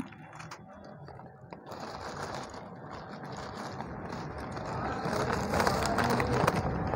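Polythene sheet crinkling and rustling as it is gathered and wrapped around the base of a potted plant. It starts about a second and a half in and grows louder in the second half.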